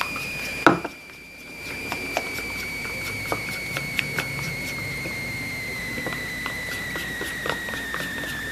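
Plastic spoon stirring white glue in a plastic bowl: small irregular clicks and scrapes a few times a second. Under it is a steady high whine that slowly drops in pitch.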